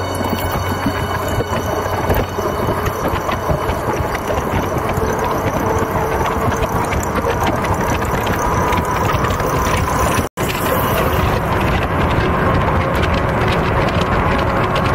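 Wind rushing over the microphone and tyre noise of an electric bicycle rolling downhill at speed, a steady dense rush, with a faint thin whine in the second half. The sound cuts out for an instant about ten seconds in.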